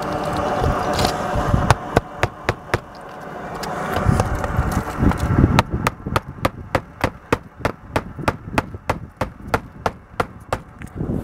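Hammer driving roofing nails through a radon pipe's roof boot flange into the shingled roof: a few taps about two seconds in, then a quick, even run of strikes, about four a second, from around halfway on. A low rumble comes between the two.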